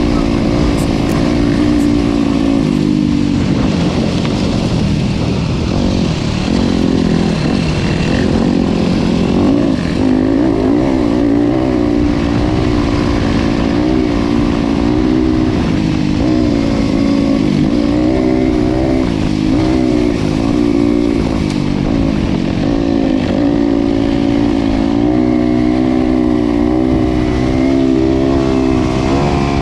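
Motorcycle engine running on the move, its pitch rising and falling with the throttle.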